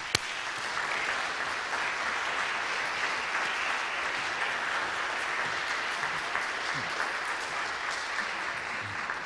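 An audience applauding in a steady, continuous round of clapping.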